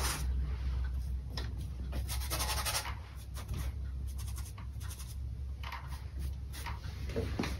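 Flat paintbrush strokes on canvas: a run of short, irregular scratchy swishes of bristles dragging acrylic paint across the surface, over a steady low hum.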